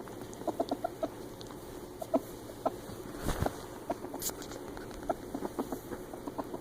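Ferret dooking: quick runs of short, soft clucking chirps, the excited chuckling sound a playful ferret makes. There is a brief rustle about three seconds in.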